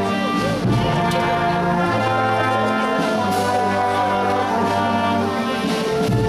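Marching brass band playing held chords, with trumpets and trombones on top and a tuba on the bass line.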